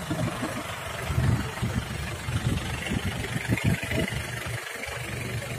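Diesel engine of a Daihatsu Taft 4x4 idling with a steady, rough low rumble.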